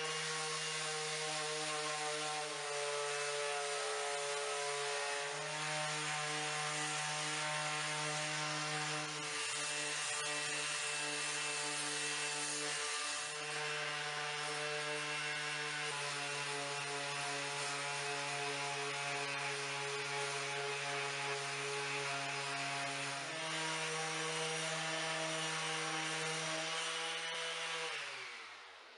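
Makita 18V cordless random orbit sander running, with the hiss of the pad abrading a walnut and epoxy board. The motor hum holds steady but shifts slightly in pitch a few times, then winds down with falling pitch near the end.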